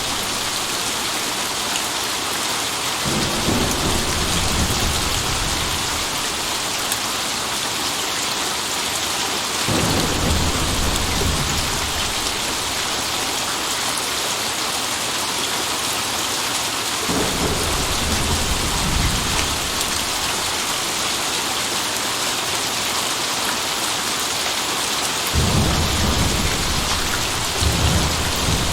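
Steady rain with four low rolls of thunder, each lasting a few seconds.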